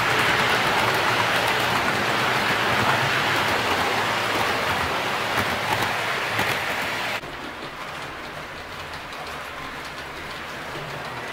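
HO-gauge model train's metal wheels rolling along the track, a dense rattle that fades as the last cars pass and draw away. About seven seconds in it cuts abruptly to a quieter, more distant rolling sound of the train.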